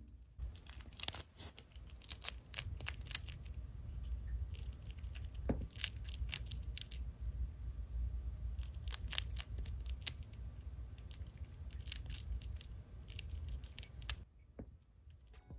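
Hybrid dwarf hamster nibbling a puffed treat: a quick, irregular run of tiny crunchy clicks that stops about a second before the end.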